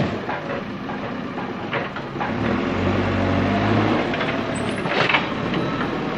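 Backhoe's diesel engine running under load while digging, easing off and then working up again, with a few sharp knocks about two seconds in and near five seconds.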